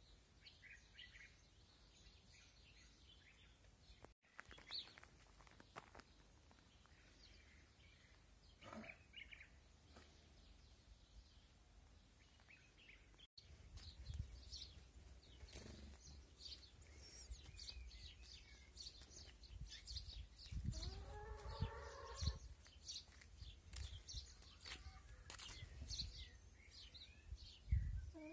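Faint chirping of small birds, with one longer, rising animal call about three quarters of the way through. A low wind rumble on the microphone runs under the second half.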